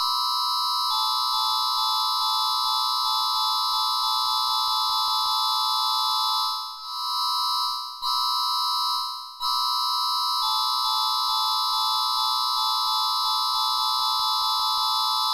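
Emergency alert attention tone: a loud, steady electronic chord of several tones held for seconds at a time, breaking off briefly about seven and nine and a half seconds in.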